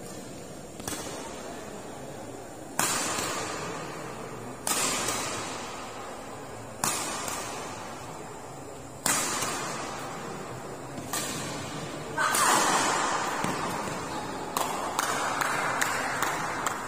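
Badminton rackets striking the shuttlecock in a doubles rally: sharp hits roughly every two seconds, each echoing in the hall, with several quicker hits in a row near the end.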